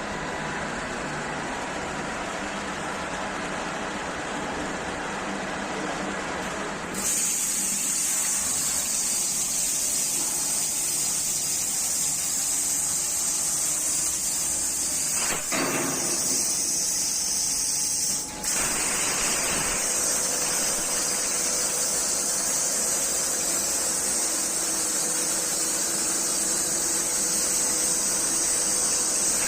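CNC plasma torch arc hissing as it cuts 3 mm sheet metal at 45 A. It starts suddenly about seven seconds in with a loud, high hiss and breaks off briefly twice near the middle. Before it starts there is a steady rushing noise.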